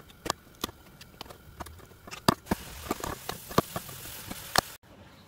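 Wood chisel clearing waste from a drilled-out mortise in a wooden bed rail: irregular sharp clicks and cracks as chips are pared and pried out. A scraping hiss joins about halfway through, and the sound cuts off suddenly near the end.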